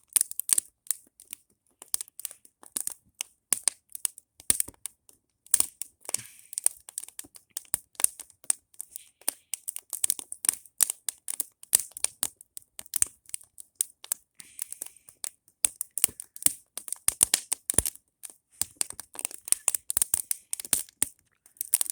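Fire burning a plastic floppy disk, crackling and popping irregularly with several sharp crackles a second.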